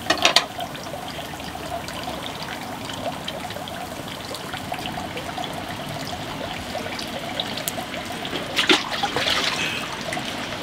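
Eel skewers sizzling on a charcoal grill, a steady crackling hiss with two brief louder flare-ups, one at the very start and one about eight and a half seconds in.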